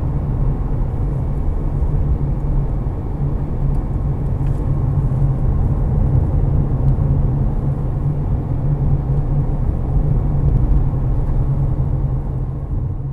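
Steady low rumble of a 2016 Subaru Crosstrek driving at road speed, heard from inside the cabin: tyre and road noise with the engine beneath.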